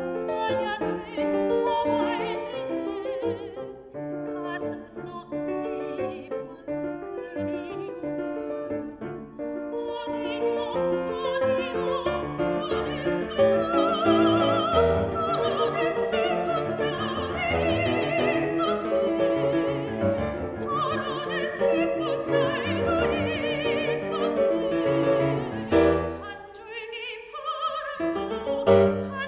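Soprano singing a Korean art song with wide vibrato over piano accompaniment.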